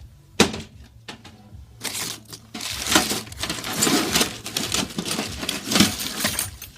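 Tools and loose blades clinking and clattering as they are rummaged through in a toolbox: one sharp click at the start, then a long run of rapid metallic rattling and knocks.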